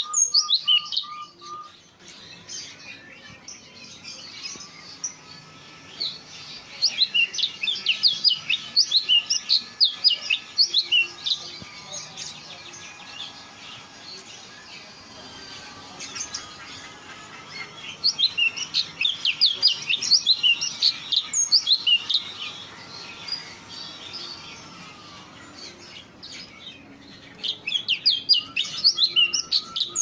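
Caged songbird singing in bouts of rapid, high, repeated chirps and trills, three long bursts of several seconds each, with softer calls between them.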